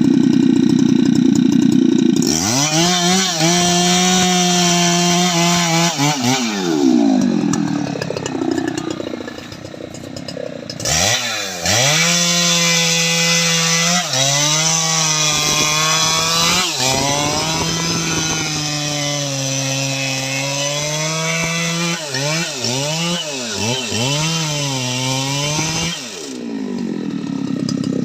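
Jonsered 2095 Turbo 93.6 cc two-stroke chainsaw cutting teak. Its pitch drops and holds under load in the cut, and the revs swing up and down in between.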